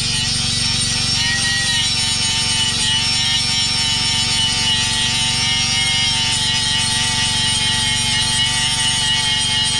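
Ryobi angle grinder with an abrasive disc grinding old paint and rust off a steel tube: a steady, high motor whine that wavers slightly in pitch as the disc bears on the metal.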